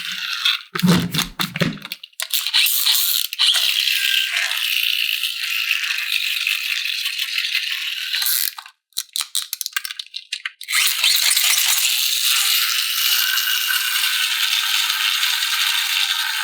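Toy packaging being handled: plastic and cardboard rustling and rattling, with a few light knocks near the start and a run of separate clicks about two-thirds of the way through.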